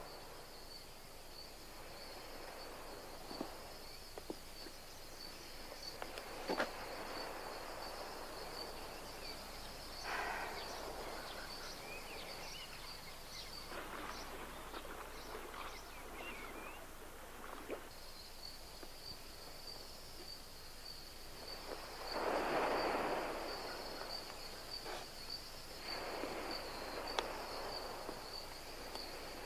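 Night ambience of a steady high insect trill, pulsing finely. It drops out for about four seconds around the middle, with a few soft swells of noise underneath, the loudest about two-thirds of the way through.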